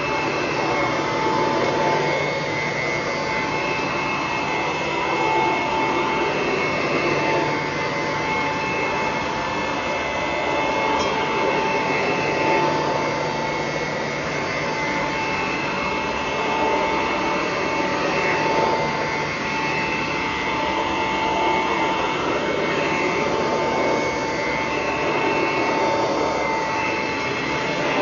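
A 1941 Kirby Model 4C upright vacuum cleaner runs steadily while it is pushed back and forth over carpet. Its motor gives a constant high whine over the rush of air, and the level swells and falls slightly with the strokes.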